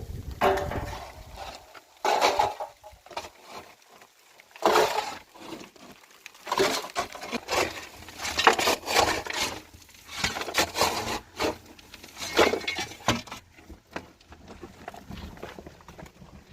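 Irregular knocks, clinks and scrapes of hard objects being struck or handled, coming in clusters with short pauses between them.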